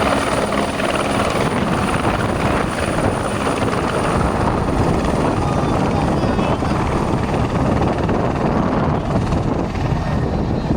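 Helicopter rotor and engine noise, a steady loud dense wash with a fast chop.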